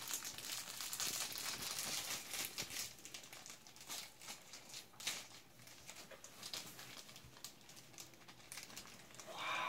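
Clear plastic wrapping crinkling and rustling as it is pulled off a rapier blade by hand, in irregular rustles that are densest in the first few seconds. A short pitched sound comes near the end.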